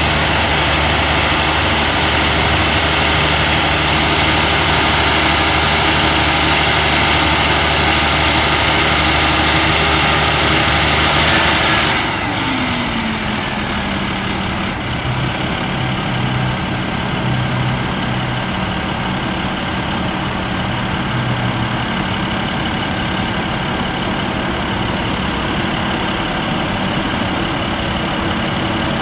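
MaxxForce 10 diesel engine of an International 7500 truck running at raised revs; about twelve seconds in the revs fall away with a dropping pitch and it settles to a steady idle.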